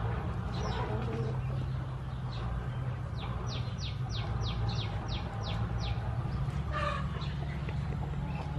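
Birds calling: a quick run of about nine high notes, each sliding down, in the middle, then a lower call near the end, over a steady low hum.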